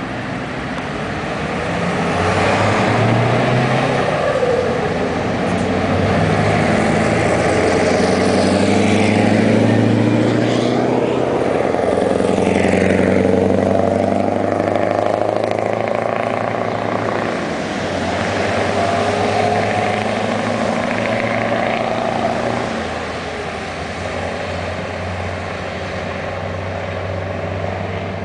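Scania 144 530 and 164 480 trucks, with V8 diesel engines, accelerating and driving past close by. Their engine pitch climbs and drops repeatedly, and the sound is loudest in the middle as they pass, settling into a steadier, quieter drone near the end.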